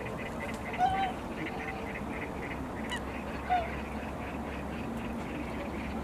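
A flock of whooper swans calling: two loud, short honking calls, one about a second in and one past the middle, over a steady background of many softer calls from the flock.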